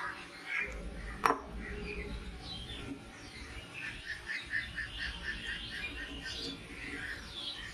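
Small birds chirping and twittering in the background, with a quick run of repeated notes near the middle. A single sharp click about a second in.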